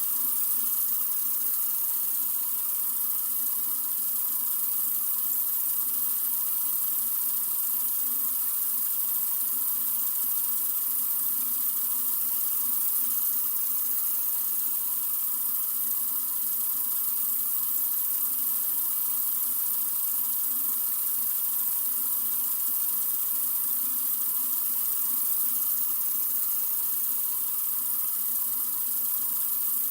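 Sink faucet running in a continuous steady stream: an even hiss with no change in flow.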